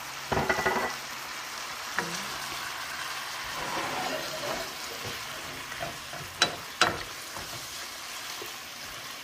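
Sliced beef sizzling in sauce in a non-stick pan while it is stirred with a wooden spatula. There is a short clatter just after the start and sharp knocks of the spatula on the pan, two close together past the middle.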